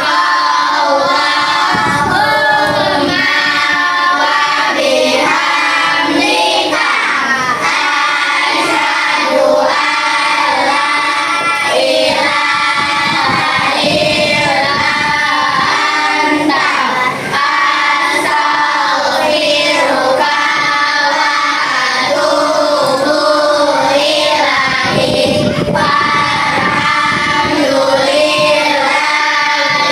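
Children singing a song together in chorus, with sustained, melodic notes throughout.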